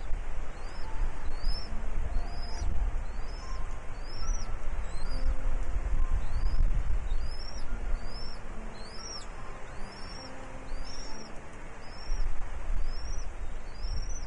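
A bird repeating a short, high, arched chirp, about one to two a second, over a steady low rumble.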